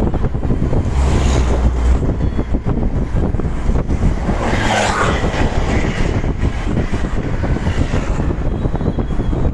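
Road and wind noise from a moving vehicle, with wind buffeting the microphone. About halfway through, a truck passes close by and briefly brings a louder, brighter rush.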